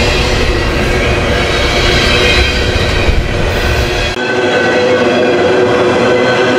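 Freight cars of a long train rolling past on the rails: a steady, loud noise of wheels on track. About four seconds in, the low rumble drops away suddenly and a few steady tones ring through the rolling noise.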